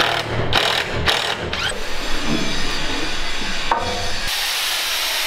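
Tool work on cedar wall planking: a run of short rasping strokes about every half second, then a steady hiss from about four seconds in.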